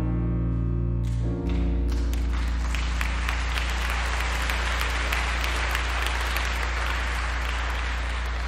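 A live band's final held chord, which stops about a second and a half in. Audience applause then takes over and slowly fades, over a low steady tone.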